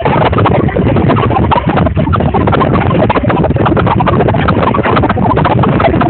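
Loud, dense crowd noise: a large live audience cheering, screaming and clapping, heard through a low-quality recording.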